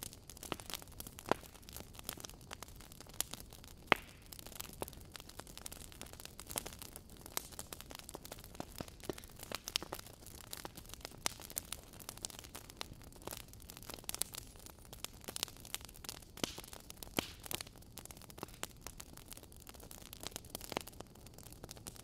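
Wood fire crackling in a fireplace: a dense, irregular run of small pops and snaps over a faint steady low rumble, with the sharpest pop about four seconds in.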